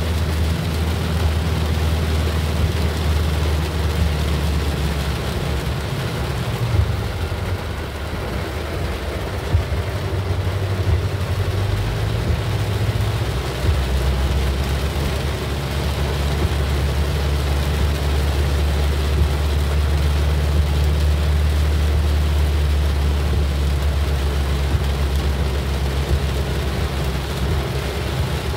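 Inside a car driving through heavy rain: the steady low drone of the engine and tyres under a constant rush of rain hitting the roof and windscreen. The low drone shifts and wavers for several seconds in the middle, then settles again.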